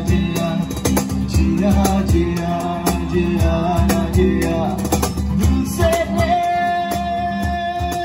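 Live band playing a song: a singer with guitar and a drummer on a kit with cymbals. The singer holds one long note over the last couple of seconds.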